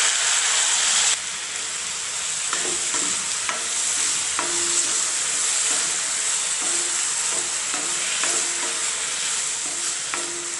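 Green chillies and freshly added yogurt sizzling in a kadai, a steady hiss that drops abruptly about a second in. From about two and a half seconds, a wooden spatula stirring scrapes and taps irregularly against the pan.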